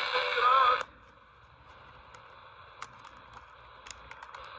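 Small CF210SP kit radio's speaker playing an FM station with singing, which cuts off suddenly about a second in. A faint hiss with scattered clicks and crackles follows, as between stations.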